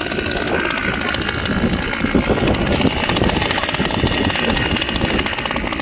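Strong wind buffeting the microphone on open ice, a steady, gusting low rumble.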